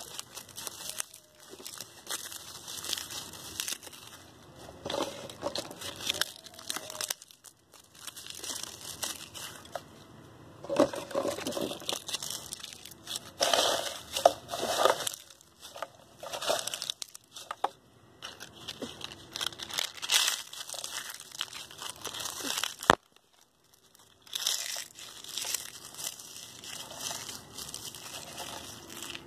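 Dry leaves, flower petals and dried husks rustling and crackling as a hand stirs and crumples them on a plastic plate, in irregular spurts with a brief pause about three-quarters of the way through.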